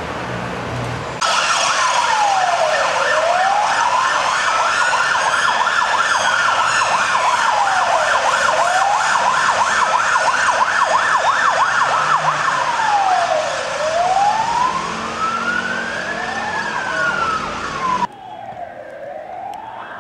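Emergency vehicle sirens: a slow wail rising and falling about every five seconds, with a second siren's rapid yelp over it for much of the time. The sirens start abruptly about a second in and drop sharply in level near the end.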